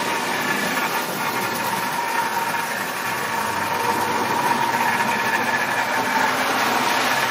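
Marx tinplate toy electric train running on the layout: a steady whirring motor hum with a rattle of gears and wheels on the metal track, getting a little louder in the second half.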